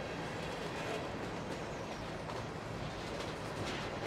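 Covered hopper cars of a freight train rolling past close by: a steady rumble of steel wheels on the rails, with a few light clicks near the end.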